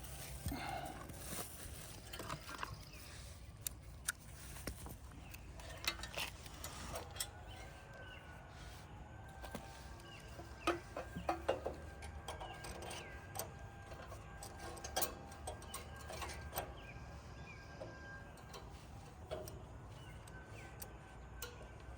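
Scattered light clicks and knocks of hand tools and small metal parts being handled while a generator carburetor is swapped, over a faint steady background hum.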